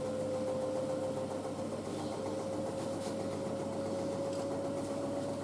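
Miele W562 washing machine's motor whining as the drum climbs through its spin, one steady tone rising slowly in pitch as the speed goes up in stages.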